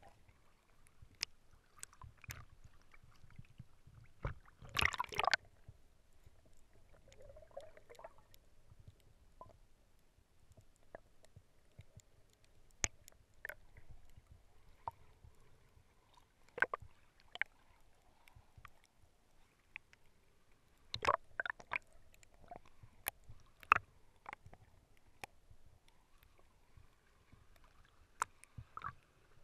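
Underwater sound picked up through a GoPro's waterproof housing: faint water noise with scattered sharp clicks and pops, and a louder rush of water about five seconds in.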